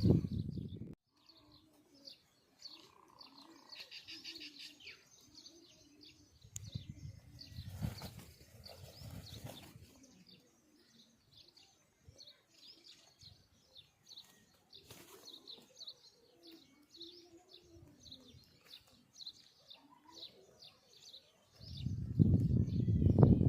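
Small birds chirping faintly, a steady run of short high twitters. Crows caw loudly at the very start and again in the last couple of seconds.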